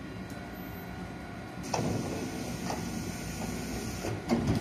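A stopped JR 255-series electric train's passenger doors slide open with a sudden rush of air about two seconds in, then a second short burst of air near the end, over the steady hum of the standing train.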